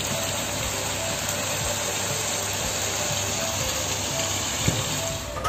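Pork igado sizzling in a wok: a steady frying hiss, with faint background music.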